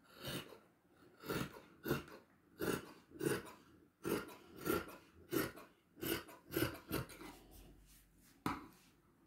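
Tailor's shears cutting through stretch velvet fabric: a steady run of sharp snips, about one and a half a second, pausing briefly near the end.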